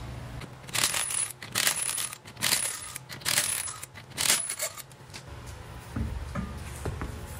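Cordless impact wrench zipping out the lug bolts of a BMW E90's front wheel: five short rattling bursts about a second apart, each ending in a thin high whine as the bolt spins free. Softer knocks follow near the end as the wheel is pulled off the hub.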